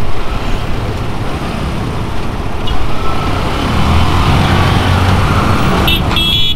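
Several motorcycle engines and a truck engine running together as vehicles move onto a ferry ramp, a steady dense rumble. Two short high-pitched beeps near the end.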